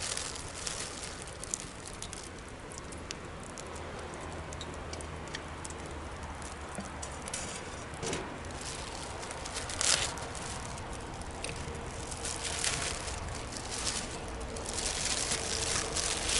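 Wood bonfire crackling, with scattered sharp pops and snaps over a steady hiss of flame; a louder pop about ten seconds in and a busier run of crackles near the end.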